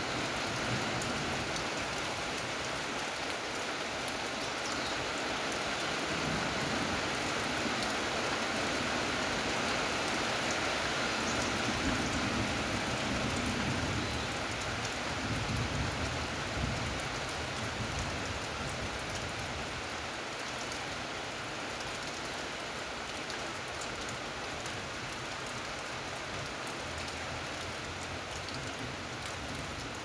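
Steady rain falling on corrugated metal roofing, an even hiss of drops.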